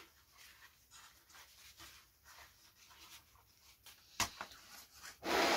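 Faint rubbing strokes as surplus CA glue is wiped off a balsa wing joint, with a sharp tap about four seconds in. Near the end comes a short, loud puff of breath blown over the wet glue.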